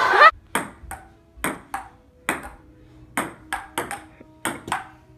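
Table tennis rally: a ping-pong ball clicking off the table and paddles, about a dozen sharp ticks at an uneven two or three a second.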